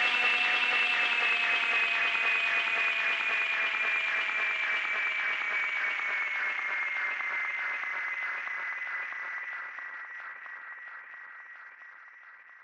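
Background music ending: a held chord that slowly sinks in pitch and fades out over the last few seconds.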